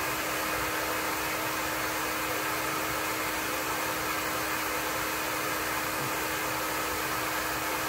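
Hand-held, hair-dryer-style terahertz hot-air blower running steadily: an even rush of blown air with a constant hum under it.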